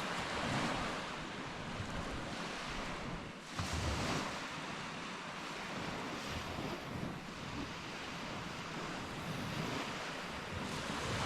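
Ocean surf washing on the shore near high tide, a steady wash of waves that swells louder about three and a half seconds in and again near the end, with some wind on the microphone.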